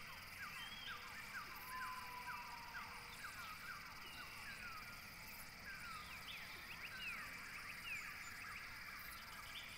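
Faint outdoor field ambience with birds chirping: a quick run of short falling chirps, about three a second, through the first few seconds, then scattered chirps over a steady faint hiss.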